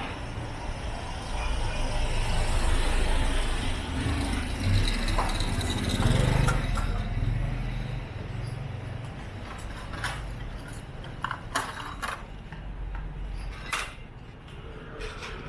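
A motor vehicle passing on the street, its engine and tyres swelling over a few seconds and then fading. Later, several sharp knocks.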